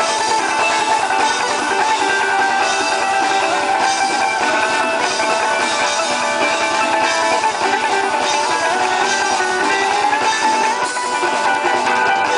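Live acoustic string band playing: strummed acoustic guitars and banjo over upright bass and drums, steady and loud.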